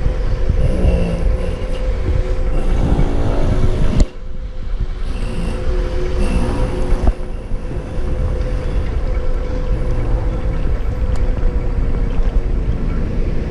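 Bird electric scooter riding along the street: a steady motor whine that rises and falls in pitch with speed, over a low rumble of wheels and wind. A sharp click about four seconds in, after which it is briefly quieter.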